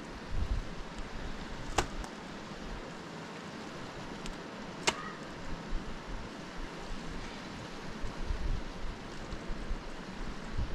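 Steady rushing outdoor noise with wind buffeting the microphone, and two sharp knocks about three seconds apart.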